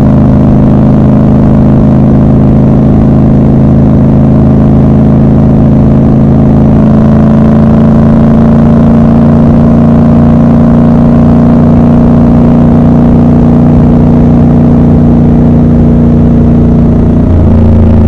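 Triumph Scrambler 1200 XC's 1200 cc parallel-twin engine running at a steady cruise, its pitch holding level for most of the time and dipping near the end.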